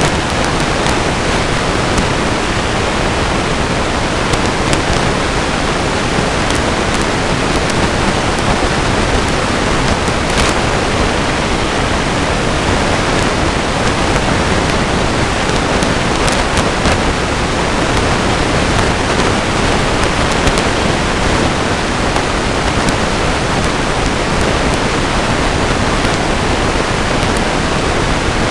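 Steady, loud, even hiss with a few faint ticks and no animal calls: the self-noise of a trail camera's recording.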